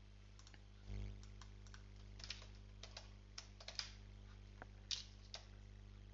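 Typing on a computer keyboard: an irregular run of key clicks as a name is typed, over a steady low hum.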